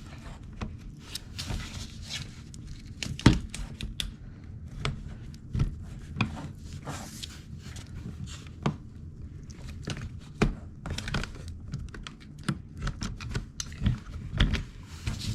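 Irregular clicks, knocks and rustling of hands working channel-lock pliers and a hose clamp onto a plastic dishwasher drain hose, with a sharp knock about three seconds in.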